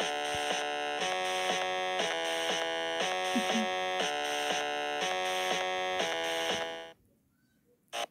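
Buzzy electronic soundtrack of a pixel-art train animation, heard through a phone's speaker: steady layered tones that change on a regular beat about twice a second. It cuts off about seven seconds in.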